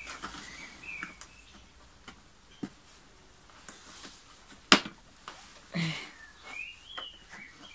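Hands working the red plastic housing of an Eta Neptun vacuum cleaner during disassembly: scattered clicks and knocks, with one sharp, loud knock about halfway through, and short high squeaks now and then.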